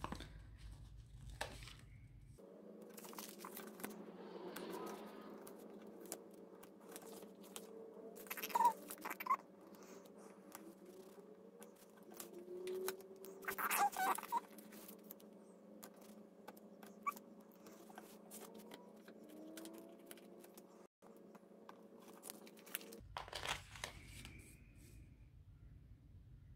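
Paper planner pages and sticker sheets being handled: crinkling, rustling and small taps as stickers are peeled off and pressed onto the pages, with louder crinkles about nine and fourteen seconds in.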